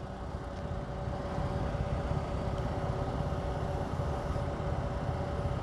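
Electric-hydraulic dump pump motor of a Daihatsu Hijet mini dump truck running with a steady whine as the tipper bed is powered down, growing a little louder over the first few seconds.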